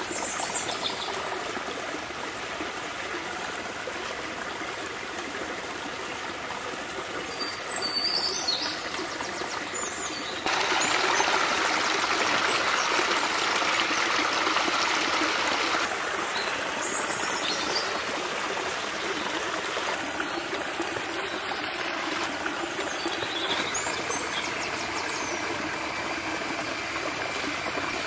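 Steady rushing of running water, as from a forest stream. It grows louder for about five seconds near the middle, a few faint short chirps come and go, and a thin high steady tone joins near the end.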